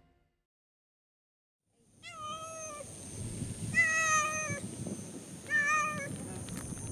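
A black-and-white stray cat meowing three times, each call under a second long, as it walks up to greet the person: friendly, excited greeting calls. Silence for the first two seconds before the calls begin.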